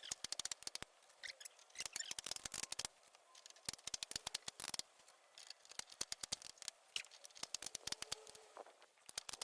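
Plastic clips of a Wallpods living-wall cover plate snapping into the base plate as it is pressed on, making quick runs of sharp clicks in several clusters.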